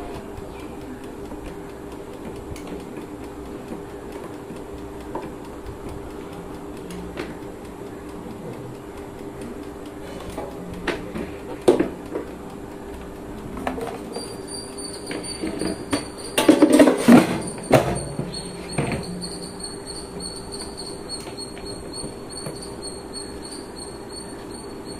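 Air fryer being handled, with knocks and clicks as its plastic body and dials are touched and turned; the clicks are loudest a little past the middle. From about halfway a steady high whine sets in and holds, as the fryer is powered on and running.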